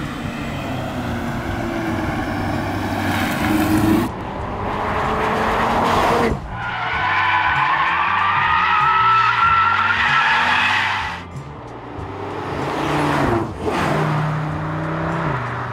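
Audi RS3's turbocharged five-cylinder engine revving hard and its tyres squealing as the car drifts. The revs climb over the first few seconds, the sound switches abruptly several times, and a long steady tyre squeal runs through the middle.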